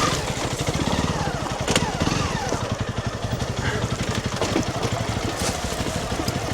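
Honda CRF300 Rally's single-cylinder engine running in a steady low-rev chug while riding over rocky trail, with a few sharp knocks and clatter from the tyres and suspension hitting rocks.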